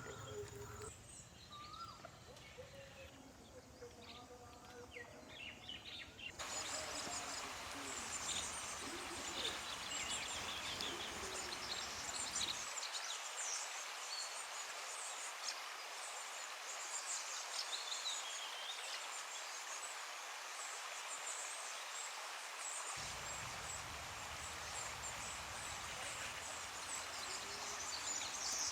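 Outdoor nature ambience: many short bird chirps and calls over a steady hiss, which gets louder about six seconds in.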